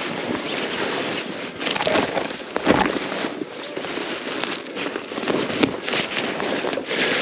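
Snowmobile working its way through snow and alder brush: a steady rushing run with several sharp snaps and scrapes of branches.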